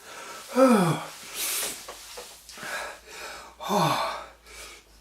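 A man gasping and groaning from the burn of a ghost pepper: two drawn-out groans falling in pitch, with sharp hissing breaths sucked in between them.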